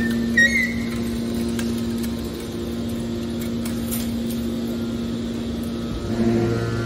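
Hydraulic iron scrap baler running with a steady machine hum, with a few brief high squeaks in the first second. About six seconds in, the sound grows louder and a deeper hum joins it.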